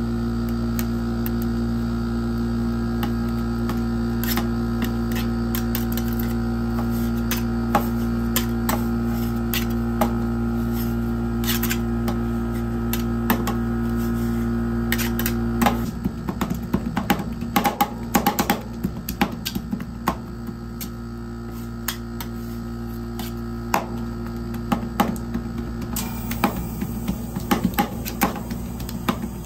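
Metal spatulas chopping and scraping ice cream on a rolled-ice-cream machine's frozen steel plate, in quick sharp taps and clicks. Under them runs a steady hum whose deep part drops away about halfway through, after which the taps come thicker.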